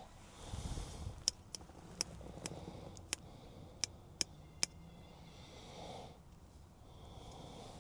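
A series of about eight light, sharp clicks over a few seconds, typical of small stainless steel door buckle covers being handled and tapped together, with faint handling rustle underneath.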